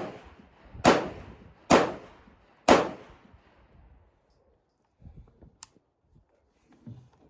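Smith & Wesson M&P 15-22 pistol, a .22 LR semi-automatic, firing three shots about a second apart, each with a short echoing tail. A faint sharp click follows a few seconds later.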